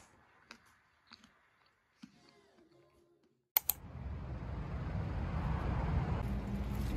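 A few faint, scattered clicks, then a sharp click and steady outdoor noise with a heavy low rumble; a low steady hum comes in near the end.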